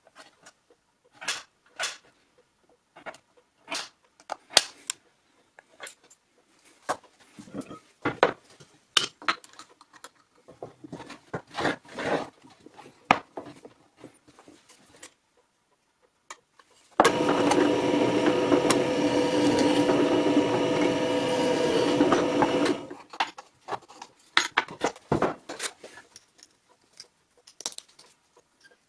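Small metal clicks and clinks as steel washers and a small drill-press vise are handled on a wooden board. About seventeen seconds in, a bench drill press starts and runs steadily for about six seconds, drilling a washer clamped in the vise, then stops, and the clinking goes on.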